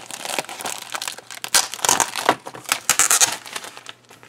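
Clear plastic bag crinkling as hands pull it open and handle the model-kit decal sheets inside, in irregular crackles that are loudest in the middle and die down near the end.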